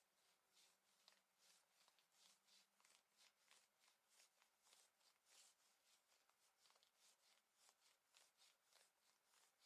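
Fingernails scratching the fabric of worn clothing in quick, faint, repeated strokes, about three a second.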